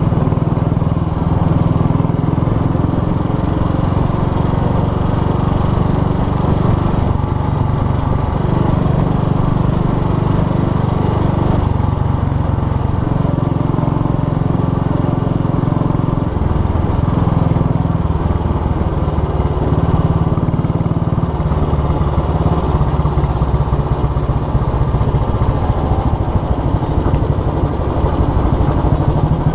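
Motorcycle engine running steadily while being ridden, heard close up from the handlebars, with a low, even exhaust beat; the engine note shifts a few times along the way.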